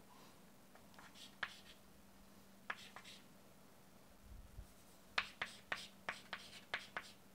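Chalk tapping and scratching on a chalkboard as an equation is written: a few scattered faint taps, then a quick run of short strokes over the last two seconds or so.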